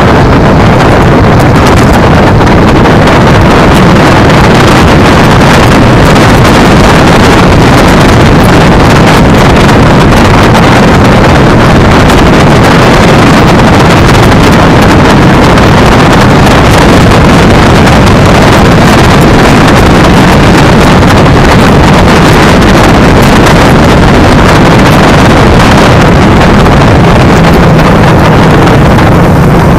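Loud, steady wind buffeting on a camera microphone mounted low on a riding electric scooter, mixed with the rumble of its tyres on asphalt.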